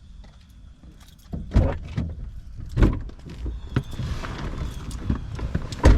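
Car doors and people climbing into a car: heavy thumps about a second and a half in, near three seconds and near the end, with rustling and small knocks between.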